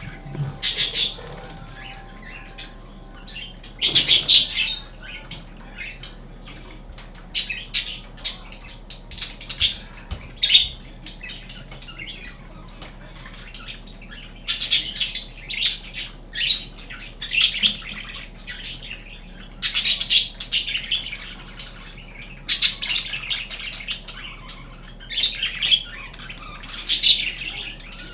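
Budgerigar chirping and chattering in short, irregular bursts of high chirps, on and off.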